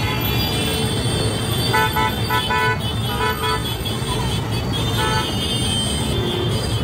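Busy road traffic of motorbikes, scooters and cars with a steady engine rumble, and a vehicle horn tooting in short beeps: a run of quick toots about two seconds in, a few more around three seconds, and one more near five seconds.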